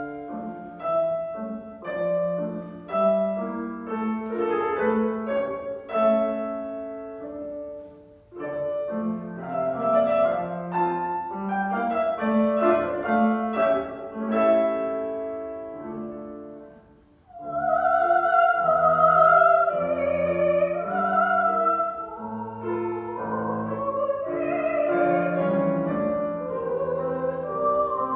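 Grand piano plays a classical introduction alone, starting from silence. About seventeen seconds in, a woman's operatic voice enters with vibrato, singing over the piano accompaniment.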